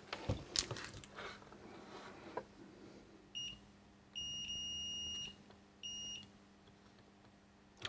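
Digital multimeter's continuity beeper sounding as test probes touch a component on a circuit board: a short beep, a longer beep of about a second, then another short beep. Light handling clicks come before them.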